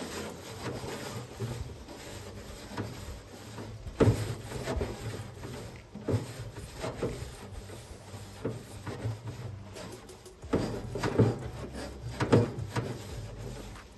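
Metal-mesh scrubbing pad of a Scrub-It grill brush scraping back and forth over cold metal grill grates in repeated, uneven strokes.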